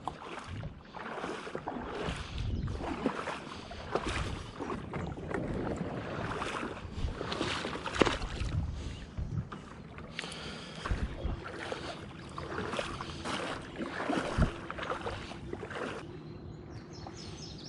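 Kayak paddle strokes splashing in the water, about one stroke a second, with a couple of sharp knocks about halfway through and again later.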